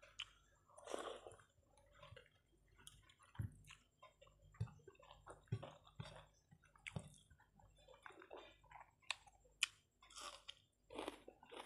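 Faint wet chewing and lip smacks of a person eating rice and curry by hand, with irregular small clicks a few times a second.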